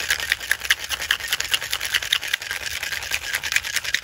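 Cocktail shaker being shaken with ice, the cubes striking the tin in a fast, even rattle.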